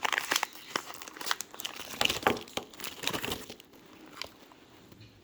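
Snack wrapper being handled and crinkled, a dense irregular crackling that dies away about three and a half seconds in.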